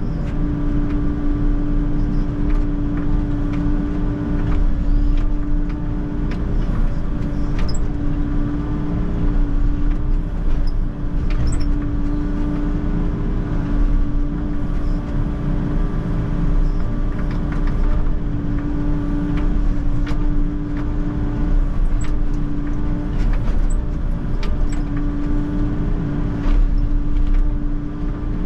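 Volvo excavator's hydraulic breaker hammering into the concrete pavement, a rapid, steady pounding over the machine's engine running steadily, with scattered sharp clicks.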